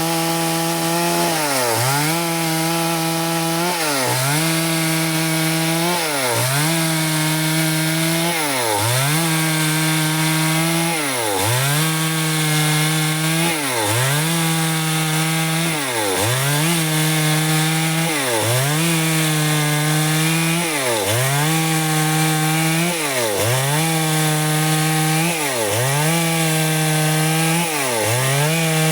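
Stihl two-stroke chainsaw running at high revs while cutting wood, its pitch dipping briefly and recovering about every two and a half seconds.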